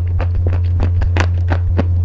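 Crunchy pasta being bitten and chewed close to the microphone: a quick run of sharp, irregular crunches, several a second, over a steady low hum.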